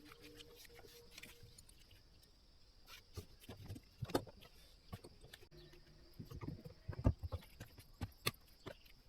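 Irregular knocks and clicks, several close together about six to seven seconds in, over a faint steady hum near the start.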